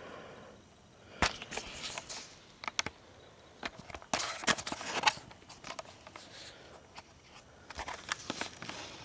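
Scattered clicks, light knocks and rustling as a small engine's new camshaft and other parts are handled, in irregular bursts with quiet gaps between.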